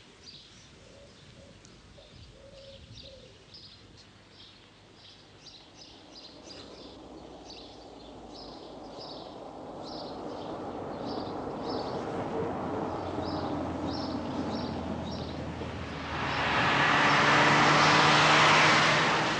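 Small birds chirping in short repeated calls while a car approaches along a country road, its engine growing steadily louder over several seconds. The car is loudest near the end as it comes close.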